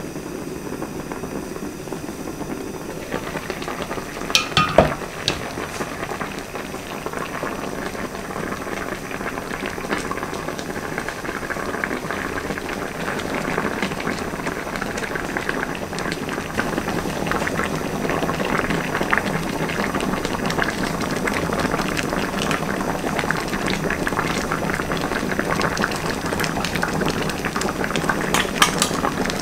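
Pan of aged kimchi in anchovy stock at a rolling boil, a steady bubbling throughout. A couple of sharp clinks about four to five seconds in, and a few lighter clicks near the end.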